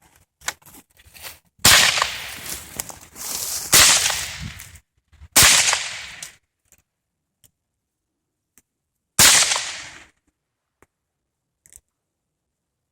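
AR-15 rifle fired four single shots at an uneven, unhurried pace. Each shot is sharp and loud, with an echo that dies away over about a second.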